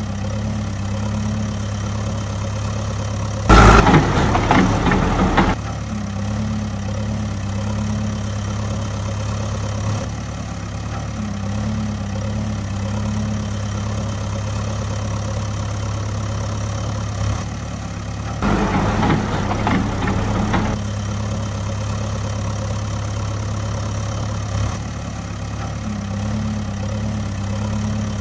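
A vehicle engine idling steadily at a low pitch. It is broken twice by louder, rough bursts of about two seconds each: one a few seconds in, and one about two-thirds of the way through.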